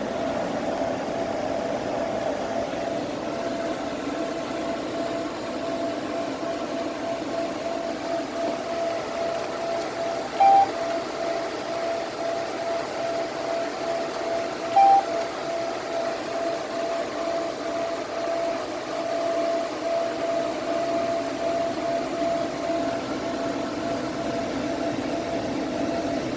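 Palomar StarLux laser system running with a steady hum and a constant tone, broken by two short beeps about four seconds apart.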